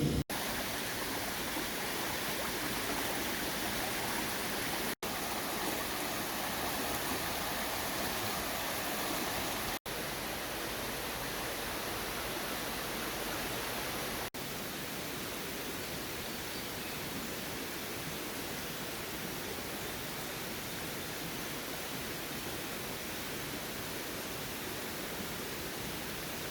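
Steady rushing of creek water, broken three times by a brief dropout.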